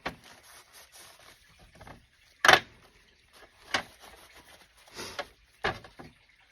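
Hands working on AR-15 bolt carrier group and charging handle parts during cleaning: five short scuffing noises, the loudest about two and a half seconds in.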